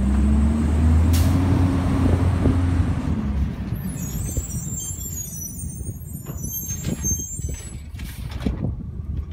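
Automated side-loader garbage truck pulling away: its diesel engine revs up with a rising pitch as the truck accelerates, with a short air hiss about a second in, then the engine sound fades as the truck moves off down the street.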